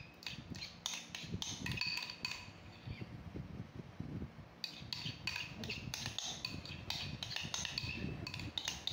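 A metal spoon scraping and tapping against a ceramic bowl as a soft cream cheese mixture is scooped out. The clinks come in two runs with a short lull a little after three seconds in.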